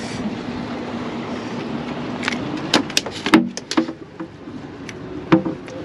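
Steady hum of a small boat's motor running under wind and water noise, then a quick cluster of sharp knocks and clicks about halfway through, with a couple more near the end.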